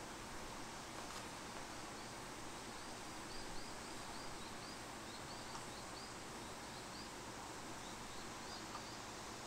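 Steady background hiss, with a run of faint, quick high chirps from about two and a half seconds in until near the end.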